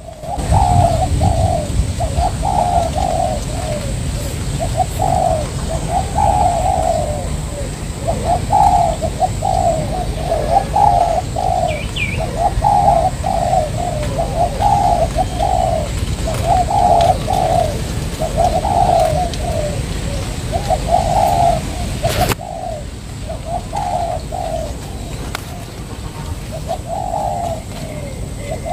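Spotted doves cooing: short phrases of coos repeated every second or two, over a steady low rumble.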